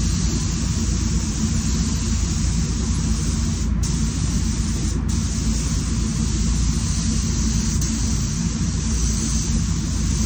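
SATA Jet 5000 RP spray gun with a 1.3 nozzle hissing steadily as it sprays paint, the spray cutting out briefly twice, about four and five seconds in, and stopping at the very end. A steady low rumble runs underneath.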